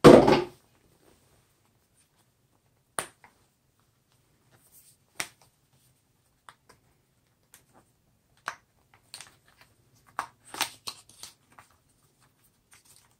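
Packaging being handled as a gimbal kit box is opened: a thud at the start, then scattered sharp clicks and brief rustles of cardboard and plastic, busiest a little past the middle.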